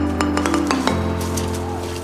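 Background music: sustained chords that change about a second in, with light clinking percussive clicks on top.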